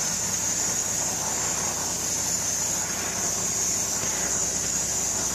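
Cummins Big Cam inline-six diesel idling steadily, heard from inside the truck's cab, over a steady high hiss.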